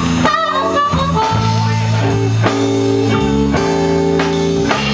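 Slow blues band passage without vocals: guitar playing bent notes over steady low bass notes and drums.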